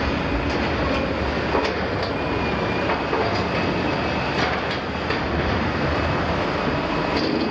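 Liebherr 974 demolition excavator running, its diesel engine and hydraulics making a steady heavy drone as the long boom lifts its demolition shear. Scattered sharp clanks are heard over it.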